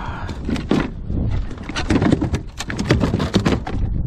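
A freshly gaffed mahi-mahi thrashing as it is brought aboard a plastic fishing kayak, its body and tail slapping and knocking on the hull in quick irregular bursts, three clusters in all.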